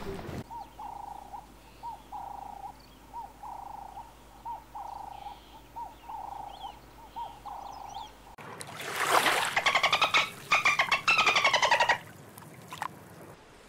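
Feral pigeons cooing softly, a dozen or so short coos repeated at an even pace. About eight seconds in, a dolphin takes over, much louder: rapid clicking and whistles that glide up and down, for about three and a half seconds.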